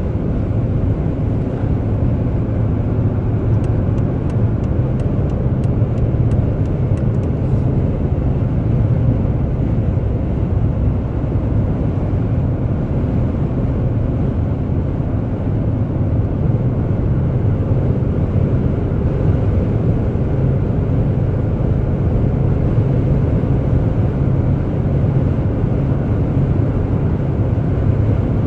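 Steady low drone of a car driving at highway speed, heard from inside the cabin: tyre, wind and engine noise blended into one even rumble.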